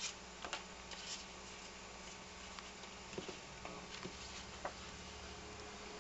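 Faint electrical hum and buzz from a battery-powered colour-changing LED lamp, with a few irregular sharp ticks; the hum is interference noise caused by the lamp's colour-changing circuit.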